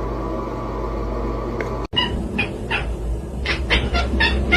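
Steady low hum and background noise, then after a sudden cut about two seconds in, a cat meowing in short, high calls, about three a second.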